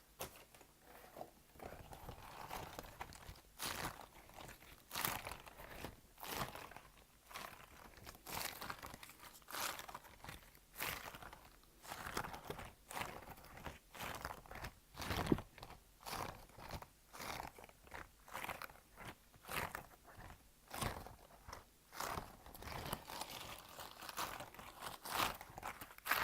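Close-miked ASMR crunching: a series of short, crisp crunching strokes, about one a second.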